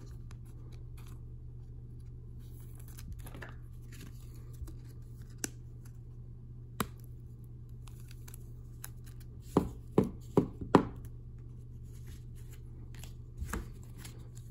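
Hands handling hockey trading cards: a card slid into a clear plastic holder and cards set down and shuffled on the table, giving a few sharp clicks, four of them in quick succession about ten seconds in. A steady low hum runs underneath.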